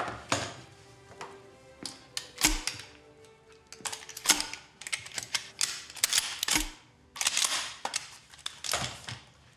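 Metallic clicks and clacks of a Benelli semi-automatic shotgun being handled and loaded with 12-gauge steel slug shells, a dozen or so sharp sounds spread over several seconds, a few with a heavy clunk, over background music.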